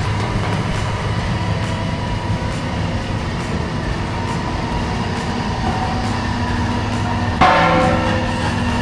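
A vehicle engine running, a steady low rumble with even rattling noise. A louder sound with several steady pitched tones comes in suddenly near the end.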